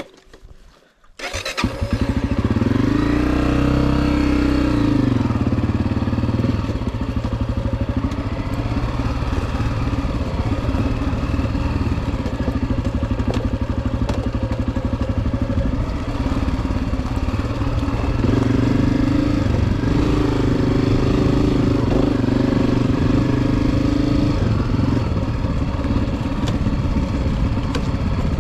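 Honda CRF250F dirt bike's single-cylinder four-stroke engine starting about a second in, revving up and back down once, then running steadily, with a second rise in pitch held for several seconds later on.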